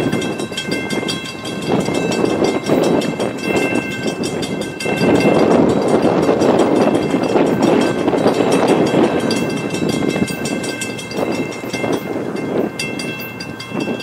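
Horn of an approaching Florida East Coast Railway freight locomotive, sounded in long chord blasts: one ends about five seconds in, a second runs for about three seconds in the middle, and a third starts near the end. Under the blasts runs a fluctuating rushing noise.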